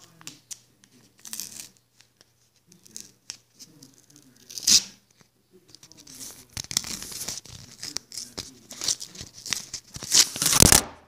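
Paper being torn and crinkled as a handmade, glued paper card pack is worked open by hand, with scattered handling clicks. The rustling grows denser in the second half, and the loudest burst of handling noise comes near the end.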